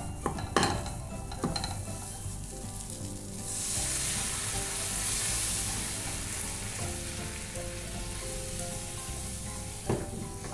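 Hot masala paste sizzling in a pan as water is poured in, the sizzle swelling into a loud hiss about three and a half seconds in, with a wooden spatula stirring and scraping against the pan.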